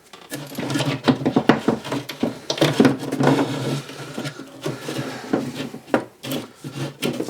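An old-work electrical box being worked into a drywall cut-out, with a run of scraping, rubbing and small knocks.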